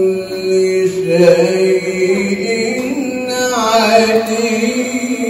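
A man's voice reciting the Quran in long, melismatic held phrases, amplified through a microphone. The pitch glides and wavers on the sustained notes.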